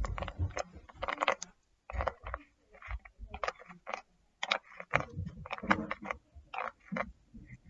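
A plastic baby oil bottle being handled and worked open close to the microphone: irregular sharp clicks and taps from the cap and bottle, some with soft low thuds.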